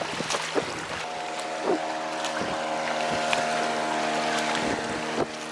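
A passing small motorboat's engine running steadily with several even pitches, coming in about a second in and dropping away near the end. Kayak paddle strokes splash now and then.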